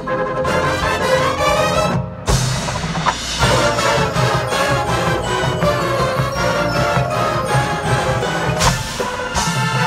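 Drum and bugle corps playing live in a stadium: brass chords over marching percussion and front-ensemble mallet keyboards. The sound breaks off briefly about two seconds in, then comes back with a sharp, loud full-ensemble hit.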